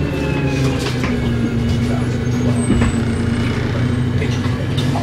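Inside a 1998 New Flyer C40LF bus under way: its Cummins Westport C Gas Plus natural-gas engine and Voith three-speed transmission running with a steady drone and whine, with a few clicks and rattles from the body and fittings.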